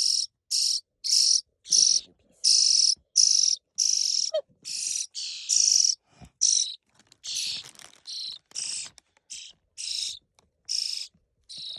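Baby starlings giving harsh, raspy begging calls for food, repeated about twice a second.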